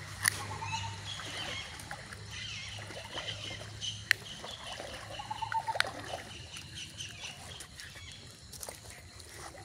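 Water splashing and sloshing around a person wading in a shallow river while handling a cast net full of fish, with a few sharp splashes, one about four seconds in. Birds chirp faintly in the background.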